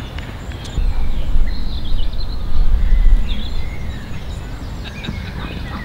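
Outdoor ambience: wind rumbling on the microphone, strongest in the first half, with birds chirping over it.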